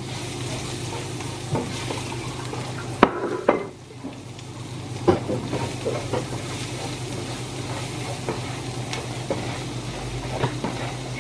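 Minced garlic sizzling in rendered beef fat in a non-stick frying pan while a spatula stirs it. The spatula knocks and scrapes against the pan every second or so, loudest about three seconds in.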